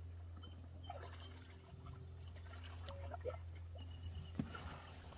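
Pond water dripping and sloshing as a moose feeds with its muzzle in the water, with scattered small clicks.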